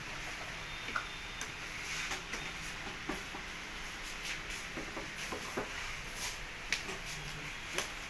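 Scattered small clicks and knocks of speaker cable connectors and leads being handled and plugged in, over a steady background hiss.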